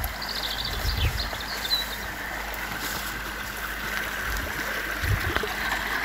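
Small waterfall rushing steadily as it falls and breaks into the pool below. A few faint high chirps sound in the first two seconds.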